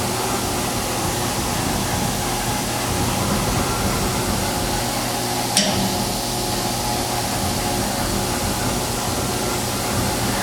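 Fadal VMC 4525HT vertical machining center running with a steady hum while its Z axis is jogged, with one sharp click about five and a half seconds in.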